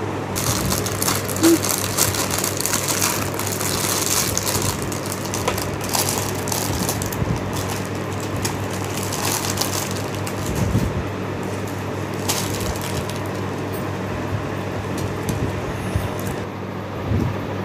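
Thin plastic bags crinkling and rustling as paper word cards are pulled out of them, busiest in the first several seconds, over a steady low hum.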